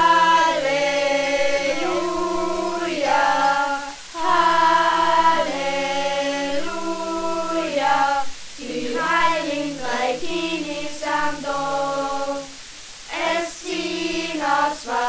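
A small group of young voices singing a Three Kings star-singers' carol in unison, unaccompanied. The song goes in phrases of held notes, with short breaks for breath between them.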